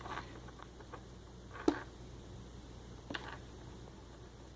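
Homemade slime being handled and squished by hand: a few faint, soft squelches, the clearest about a second and a half in.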